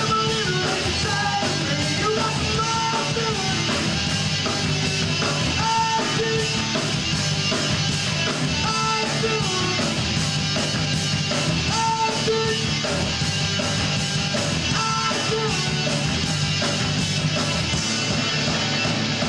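Live rock band playing: electric guitars, bass and drums, with cymbals running throughout and a high melodic line repeating about every three seconds.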